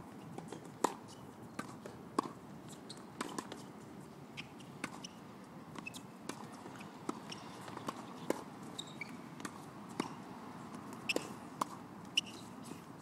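Tennis rally: rackets striking the ball and the ball bouncing, heard as sharp pops coming irregularly about once a second, some loud and some fainter.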